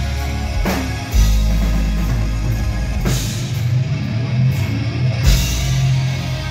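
Live rock band playing loudly, with electric guitars, keyboard, bass and drum kit; cymbal crashes ring out about a second in, at about three seconds and again past five seconds.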